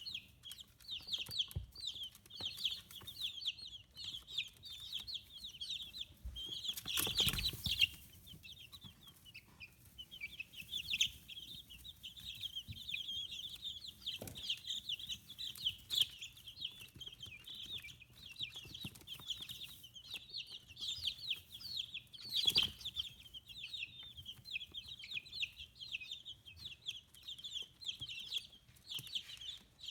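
A brood of 15-day-old chicks peeping nonstop, many short high calls overlapping. Two brief louder noises cut through, one about seven seconds in and one about twenty-two seconds in.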